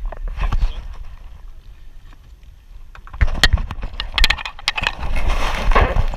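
Handling noise from a handheld action camera on a jet ski: scattered knocks and rubbing, with a rush of wind and water noise. The knocks grow louder and more frequent from about three seconds in.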